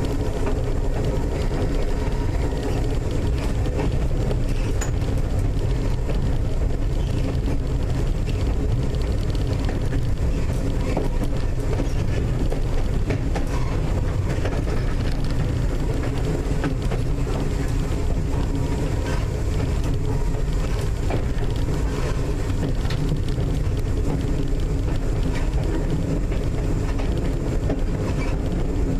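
North Shore Line 749 electric interurban car running at a steady speed, heard from inside the car: a constant rumble of wheels on rail with a steady motor and gear hum, and occasional faint clicks from the track.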